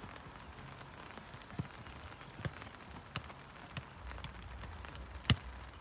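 A few light knocks spaced under a second apart, then one sharp, loud knock about five seconds in, over faint steady outdoor noise on a football pitch.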